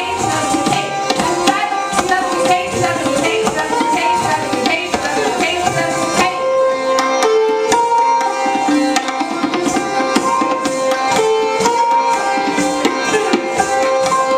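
Live Hindustani classical dance accompaniment: tabla playing a rapid, steady run of strokes under a sitar melody of held, changing notes.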